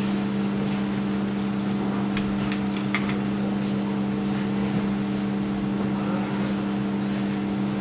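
A steady low hum with several fixed tones, even in level throughout, with a few faint clicks about two to four seconds in.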